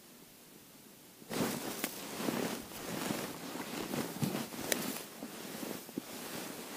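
Crunching snow and rustling winter clothing as the ice angler shifts his position over the ice hole, with scattered sharp crackles; it starts suddenly about a second in.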